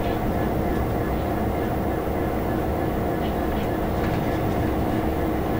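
Cab interior of a moving Class 66 diesel-electric locomotive: its EMD two-stroke V12 engine running steadily under the rumble of the wheels on the rails, with a few faint clicks as the wheels run over pointwork.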